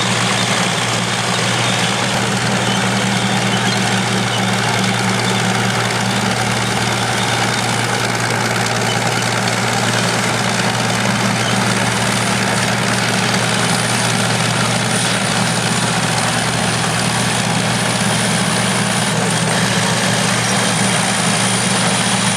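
Vintage crawler bulldozer engines running steadily: an even, deep engine drone that does not change, with a faint thin high whine over it.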